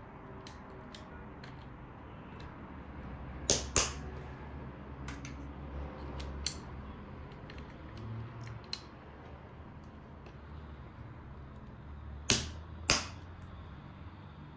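Sharp clicks and knocks of hard parts being handled while a case fan is fitted: two pairs of loud clicks, one about three and a half seconds in and one near the end, with fainter clicks in between, over a low steady hum.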